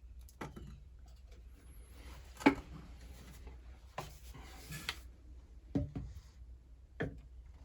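PVC pipe fittings being handled and fitted together while gluing: scattered short plastic knocks and clicks, the sharpest about two and a half seconds in.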